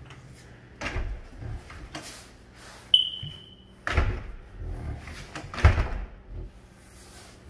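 A hand thumping and patting on an entry door, several separate knocks, with a sharp metallic click and a short ringing ping about three seconds in.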